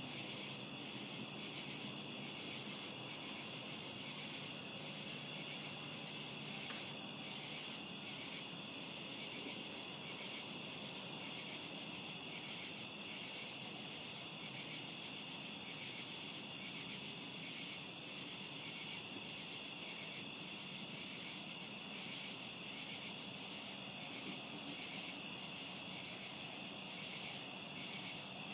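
A steady night chorus of crickets chirping, several singers at slightly different pitches, with a fine pulsing beat.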